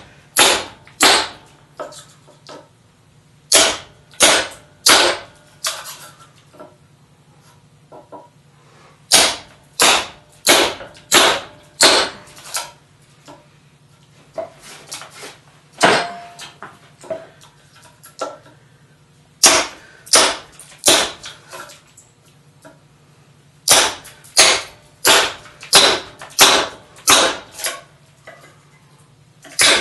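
Small sledgehammer striking the spine of a steel test blade, driving its edge down through a wooden 2x4: sharp strikes in runs of three to eight, about two a second, with short pauses between runs.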